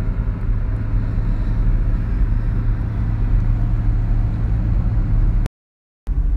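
Car driving along an asphalt road, heard from inside the cabin: a steady low drone of engine and road noise. The sound cuts out completely for about half a second near the end.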